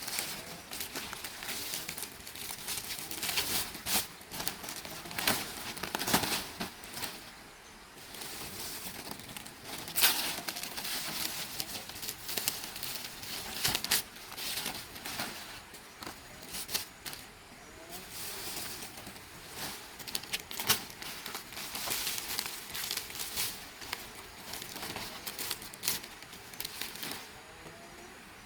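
Dry palm leaves rustling and crackling as they are handled, in irregular bursts with a few sharper snaps.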